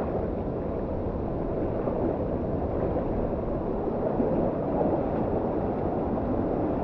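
Steady rush of a waterfall and its fast-flowing pool, a deep even roar of water.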